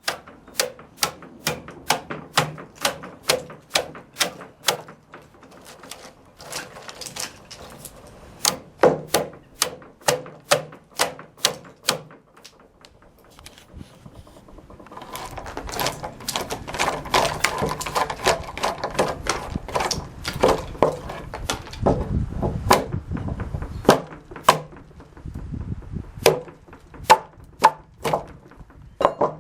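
Hammer tapping on the thin wooden tabs left between saw kerfs in a board, breaking them out to clear a dado. Repeated sharp knocks, about two a second, with a short pause about halfway and a denser, noisier run of knocks after it.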